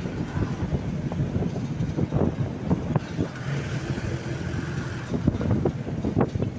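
A vehicle's engine running steadily while driving in town traffic, with the body rattling and knocking now and then.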